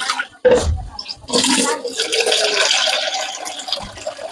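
Water pouring into a bowl to soak tamarind, a steady rushing splash that starts about a second in, after a single knock.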